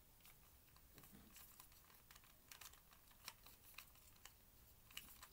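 Faint, irregular clicks of a plastic twisty-puzzle cube being turned, its layers snapping into place.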